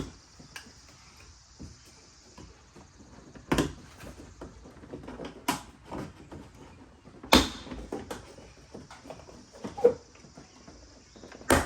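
Plastic trim clips of a car door panel snapping loose as the panel is pulled off by hand: several sharp snaps and knocks a second or two apart, with small plastic clicks and rattles between them.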